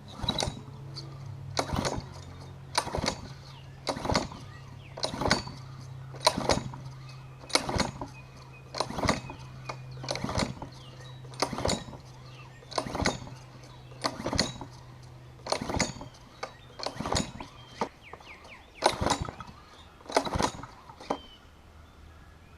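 Small gasoline engine being pull-started again and again, about sixteen pulls roughly a second and a bit apart, without catching. It will not start with the choke set, which the owner takes for a dirty carburetor.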